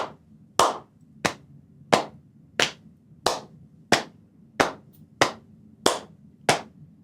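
Body percussion keeping a steady beat in fours: one hand clap followed by three pats on the lap, repeating at about one and a half strokes a second.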